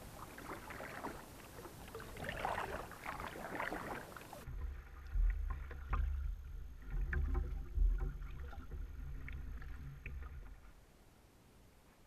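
A kayak on the water: splashing and trickling water for about four seconds, then a sudden switch to low rumbling with several sharp knocks on the hull that die away near the end.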